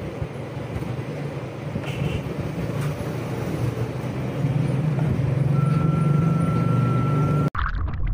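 A steady low mechanical hum, a little louder from about halfway through, with a faint thin steady tone over its last two seconds. It cuts off abruptly near the end.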